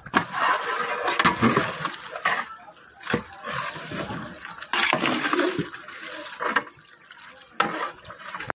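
Metal ladle stirring and turning a potful of masala-marinated meat in a large metal pot: irregular wet squelching and scraping, with a few sharp knocks of metal on metal.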